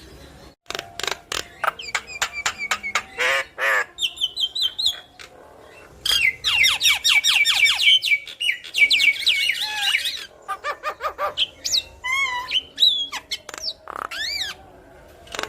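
Javan myna (jalak kebo) singing a busy, varied song: rapid runs of clicking chirps, short whistles sliding up and down, and harsh squawks, with a brief pause about five seconds in.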